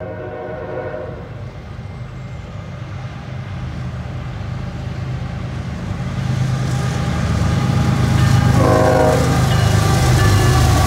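Canadian National diesel freight locomotives approaching: a horn chord sounds and ends about a second in. The deep engine rumble then builds steadily louder as the lead locomotive passes close, with a brief higher tone near nine seconds.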